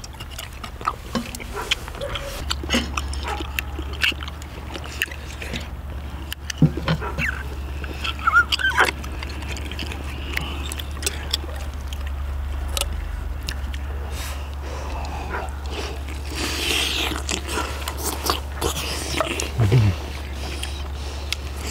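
Eating sounds: chewing and slurping seafood ramen, with chopsticks and tongs clicking against metal plates and the pan, and a few short hums of enjoyment from the eaters. A steady low hum runs underneath.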